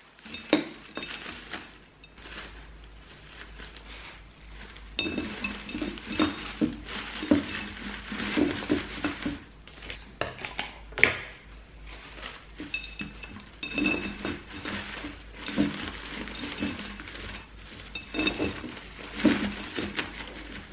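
Artificial orchid stems clinking and tapping against a glass carafe vase as they are pushed in and arranged, in irregular light knocks throughout.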